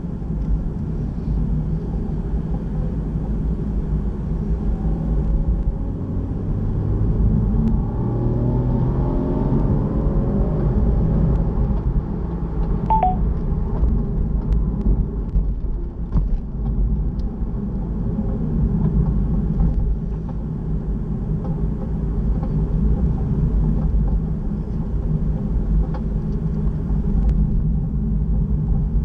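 Car engine and road noise heard from inside the cabin while driving, a steady low rumble. About a quarter of the way in the engine note rises as the car accelerates, and a brief beep sounds near the middle.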